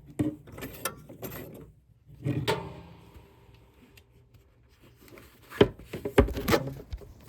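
Handling noises on the air conditioner: scattered clicks, knocks and scraping, with two sharp knocks about five and a half and six seconds in.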